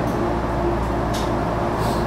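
JR East HB-E210 hybrid diesel railcar running along the line: a steady rumble with a steady hum, and two short hisses, about a second in and near the end.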